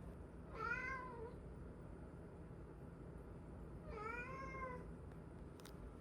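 A house cat meowing twice, about three seconds apart. Each meow is a short call that rises and then falls in pitch.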